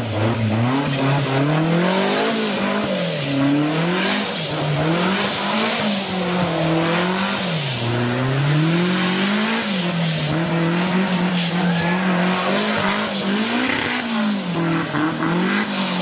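Modified off-road 4x4's engine revving hard, its pitch rising and falling about every two seconds, as the vehicle claws through thick mud, with a steady hiss of spinning tyres and flung mud.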